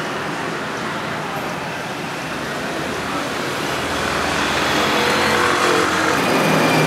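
City street traffic: cars and scooters going by in a steady wash of road noise, growing louder past the middle as a vehicle passes close.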